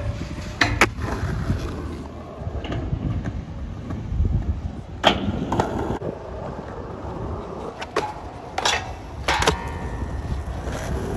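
Skateboard wheels rolling over concrete and asphalt, broken by several sharp clacks of the board popping and landing, with the loudest clacks about five seconds in and twice near the end.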